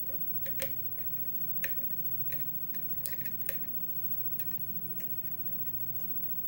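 Sharp, irregularly spaced metallic clicks of a lock pick and tension wrench working the pins inside a 6-pin Yale pin-tumbler lock during single-pin picking, over a low steady hum.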